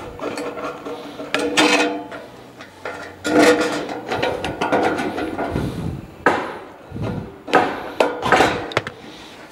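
Sheet-metal roof flashing being handled and bent. It rattles and knocks against the timber wall framing in a series of sharp metallic clatters, the loudest in the second half.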